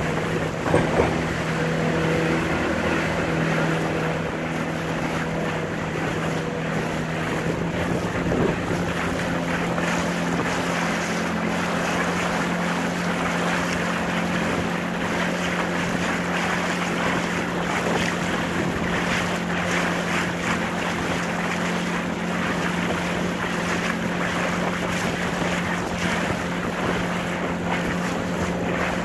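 A small boat's motor running steadily at low speed, with water splashing at the hull and wind buffeting the microphone. A couple of brief louder knocks come about a second in.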